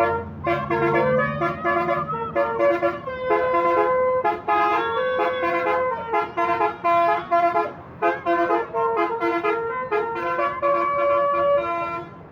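Telolet horn of a Bintang Trans bus: its roof-mounted air-horn trumpets play a melody of held notes that change in quick steps, several pitches sounding together. It cuts off near the end.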